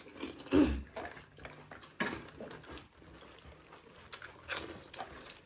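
People eating pani puri: scattered crunches of the puri shells and clinks of plates and bowls, with a brief vocal sound about half a second in.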